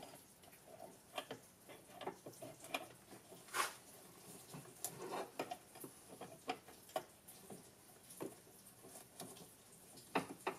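Irregular light clicks and taps of gloved hands handling wires and parts around a golf cart's forward/reverse switch, with a sharper click near the end.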